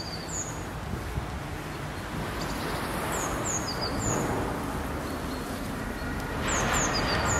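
Small birds chirping: short, high, falling notes in little groups of two or three, repeated every second or so. Underneath is a steady low rumble of street traffic that swells louder about six and a half seconds in.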